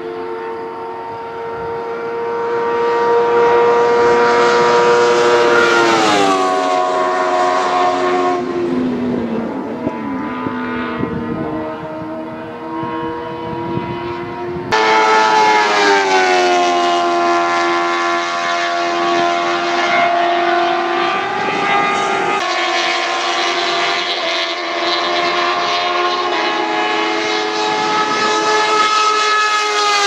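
Single-seater formula race cars with high-revving 600 cc motorcycle engines passing at speed, each engine note dropping in pitch as the car goes by, several passes in turn. The sound cuts abruptly to another car about halfway through.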